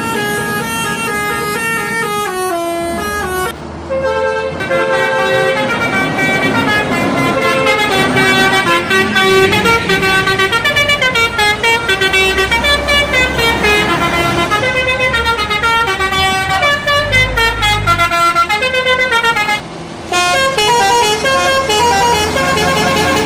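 Bus telolet horns, multi-trumpet air horns, playing quick stepped melodies with several tones sounding at once and a bus engine rumbling underneath. The sound breaks off briefly about four seconds in and again near the end.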